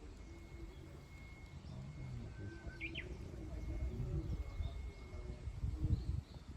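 Wild birds calling outdoors: a quick double chirp about three seconds in, over soft low calls and a low rumble that swells near the end.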